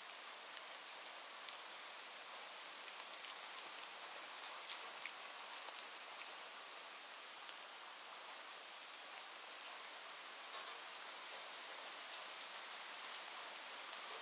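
Steady rain falling, an even hiss with scattered sharp ticks throughout.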